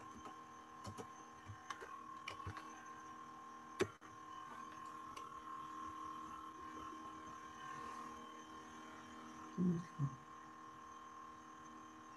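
Faint steady electrical mains hum, with a few sharp keyboard and mouse clicks in the first four seconds and two short low sounds shortly before ten seconds.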